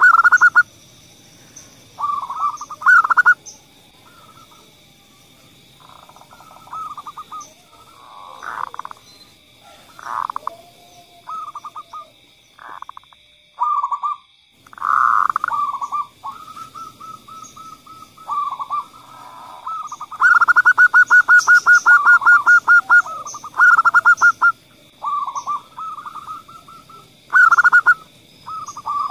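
Zebra doves cooing in short staccato phrases, with a long fast run of rapid pulsed notes about two-thirds of the way through. A faint steady high tone runs underneath.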